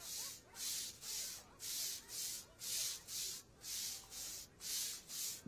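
Deck brush scrubbing a wet tiled floor in steady back-and-forth strokes, about two a second.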